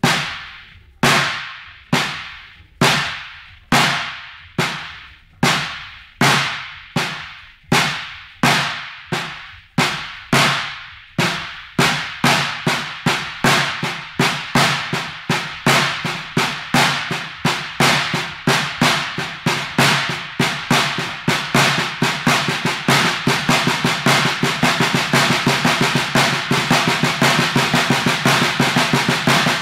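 Caixa (snare drum) struck with wooden sticks, hands alternating. Single strokes start at about one a second and speed up steadily into a fast, even stream, then stop abruptly at the end.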